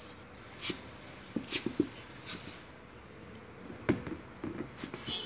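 A dog sniffing and snuffling at a rubber dumbbell toy: a few short sniffs roughly a second apart, with light taps and a sharp click near the end.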